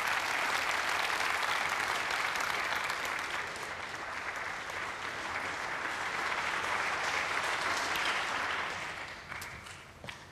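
Snooker arena audience applauding a shot with steady clapping, which dies away near the end.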